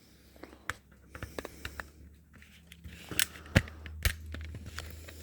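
A string of sharp clicks and knocks, loudest about three to four seconds in, over a low steady hum that starts at the outset.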